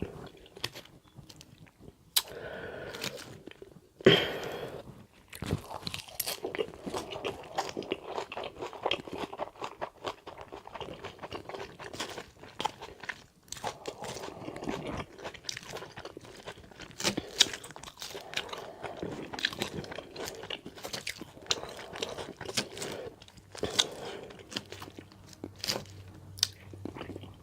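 Close-miked open-mouth chewing of a chicken salad: crunching leaves and wet smacking clicks, irregular and continuous, with a louder crunch about four seconds in.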